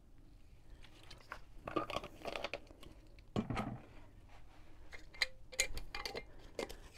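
Quiet handling noises of glassware on a wooden board: a few light knocks and rustles, then a run of small clicks near the end as a lid is fitted onto a mason jar of nettles steeping in vodka.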